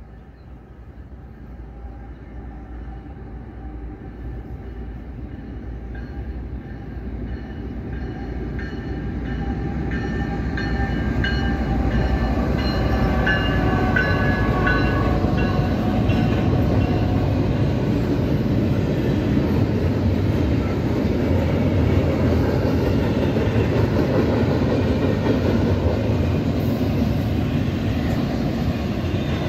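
CSX diesel freight train passing through a level crossing. The locomotive grows steadily louder over the first dozen seconds and is loudest as it goes by, with a pitched engine drone. The steady rumble and clatter of double-stack container cars rolling past follows.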